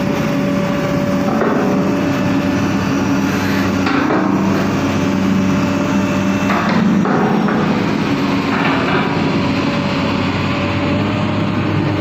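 Long-arm excavator's diesel engine running steadily as it lifts a steel sheet pile, with a few scattered knocks every two or three seconds.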